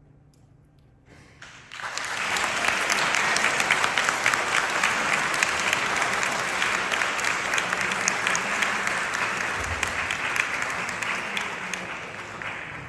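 Audience applause: after a short hush it starts about a second and a half in, holds steady, then tapers off near the end.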